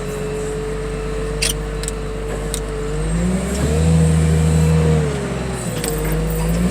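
Heavy machinery engine running steadily, then revving up about three seconds in and holding under load, easing off briefly and rising again near the end. A few short metallic clanks are heard in the first half.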